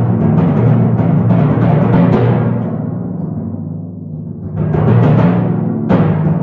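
Solo timpani played with fast, dense strokes over the drums' ringing low pitches. The sound dies away to a low point about four seconds in, then swells back up, with a sharp loud stroke near the end.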